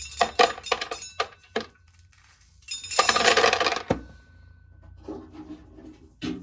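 Shelled corn kernels clattering onto a metal container bottom, a quick run of sharp clicks at first, then a dense rush of kernels about three seconds in lasting about a second, and fainter scattered ticks after. It is loud because the corn has not yet filled the bottom.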